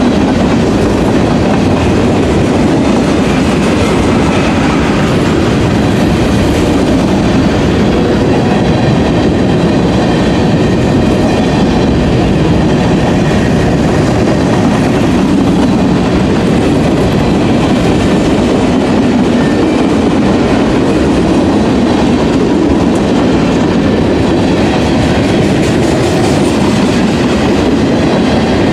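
CSX freight train's cars rolling past at close range, the wheels clacking steadily on the rails.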